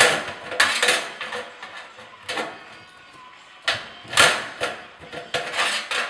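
Hand-operated spring-return stud crimper punching steel stud and track together: a string of sharp metallic clicks and clanks at irregular intervals, loudest at the start and about four seconds in.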